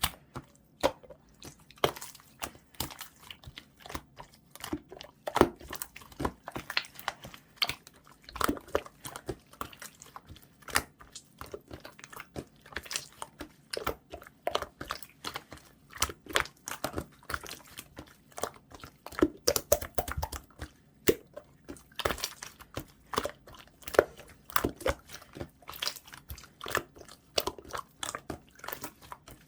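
Clear slime being squished and pressed by hand, giving many quick, irregular sticky clicks and wet pops.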